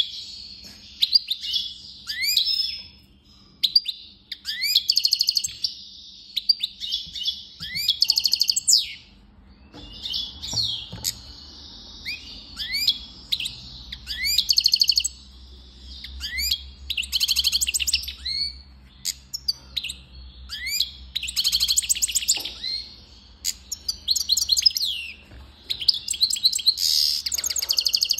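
European goldfinch singing: a long run of twittering phrases, quick rising chirps mixed with several fast, dry, rattling trills, broken by short pauses.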